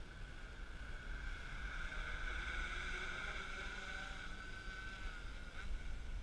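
REPTILE500 quadcopter's motors and propellers whining steadily, growing louder as it flies in close and overhead. The pitch dips slightly near the end.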